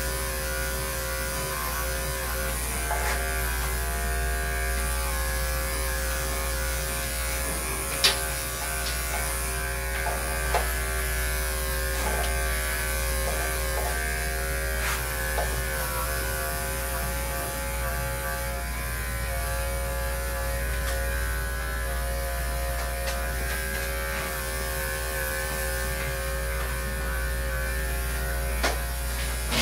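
Corded electric dog grooming clippers running steadily while shaving a large dog's coat short. A few brief clicks cut through, the sharpest about eight seconds in.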